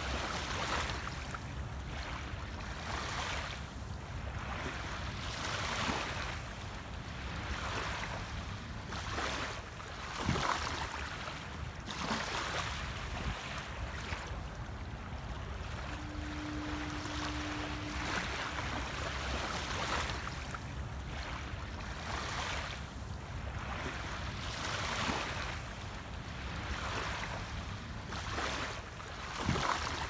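Small waves lapping on a sandy beach: a steady wash of surf that swells and falls back every second or two.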